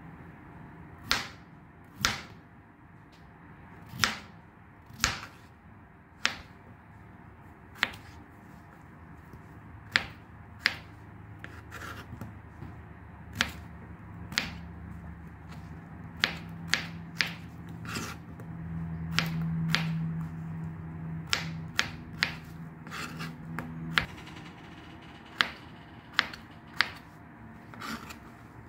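Kitchen knife cutting through potato onto a plastic cutting board: sharp, irregular knocks as the blade meets the board, about one a second at first and quicker in the second half. A low hum runs underneath from about halfway and stops suddenly a few seconds before the end.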